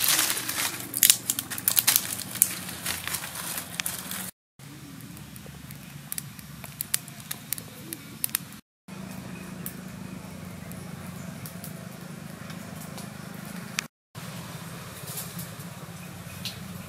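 Dry twigs snapping and rustling as they are broken and piled into kindling, a dense run of sharp cracks. After that come fainter scattered crackles of the small twig fire catching, over a low steady hum.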